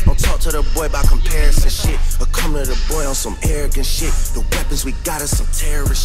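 Hip hop track with rapping over a steady beat.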